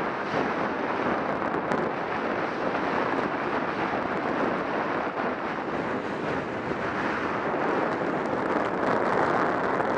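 Skis sliding and scraping over snow, with wind rushing across the action camera's microphone: a steady rushing noise.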